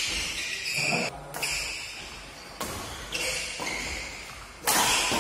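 Badminton doubles rally: rackets strike the shuttlecock with sharp cracks several times, the loudest near the end, and shoes squeak on the court between the shots.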